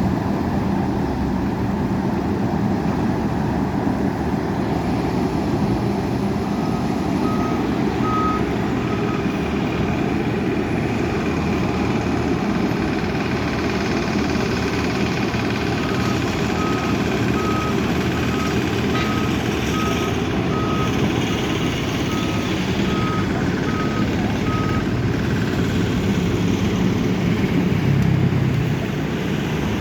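Diesel engines of heavy earthmoving machines running under work. A reversing alarm beeps at a steady pace in two stretches: a few beeps early on, then about a dozen midway. The engine noise gets a little louder near the end.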